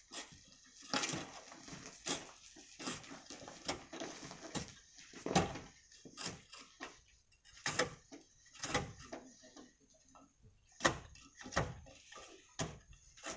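A long pole jabbed again and again into a volcanic sand cliff face to loosen the sand, giving irregular knocks. The sharpest comes a little past five seconds in.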